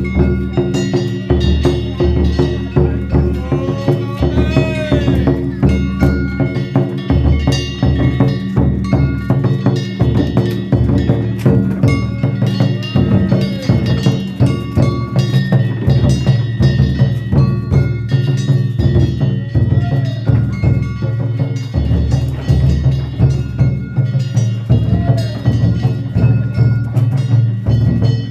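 Danjiri festival music: a large taiko drum and hand-struck metal gongs beaten together in a fast, steady, unbroken rhythm, with the gongs ringing bright over the drum.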